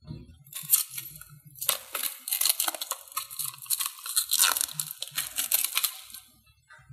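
Plastic packaging being torn open and crinkled by hand. A couple of short rustles come first, then from about a second and a half in a dense run of crackling and rustling that dies away near the end.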